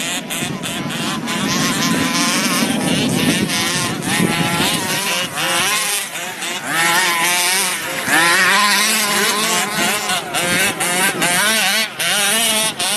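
Small two-stroke engines of radio-controlled off-road cars revving up and down as they race on dirt, the pitch rising and falling again and again.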